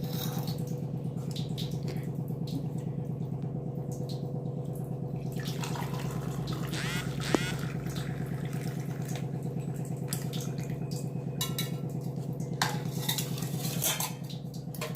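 A boiled-down betel-leaf decoction being strained: kitchen vessels clink and liquid pours, with a sharp metallic clink about seven seconds in and two more near the end, over a steady low hum.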